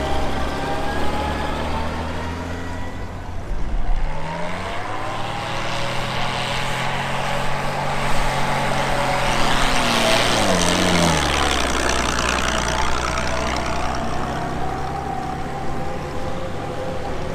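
WWII Dodge WC truck's flathead straight-six engine labouring up an off-road hill climb. The engine note climbs about four seconds in and drops again around ten seconds in.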